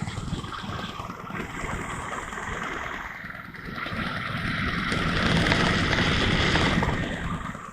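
Motorcycle engine and wind rushing over an action camera's microphone while riding, a dense rumbling noise. It swells to its loudest about four to seven seconds in, then drops near the end, the kind of unsteady rise and fall that the uploader blames on the camera's automatic noise reduction.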